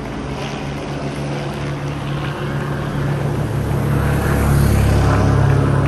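Steady sound of helicopters overhead, joined by a motorcycle engine that grows louder as the bike rides up the road past the listener, loudest between four and five seconds in.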